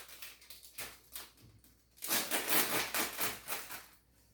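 A string of light rustles and small knocks from something being handled, with a longer, louder stretch of rustling about two seconds in.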